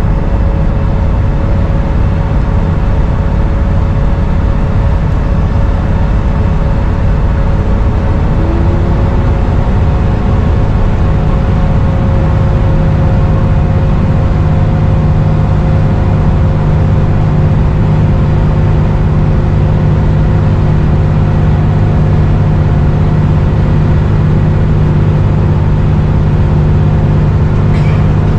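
Dennis Trident 2 / Enviro 400 double-decker bus under way, its engine and drivetrain giving a loud, steady drone with a slight turbo whistle above it. The low hum grows stronger a little under halfway through.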